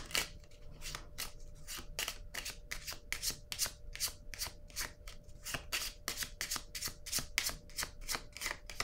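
A deck of tarot cards being shuffled by hand: a steady run of quick, soft card strokes, several a second.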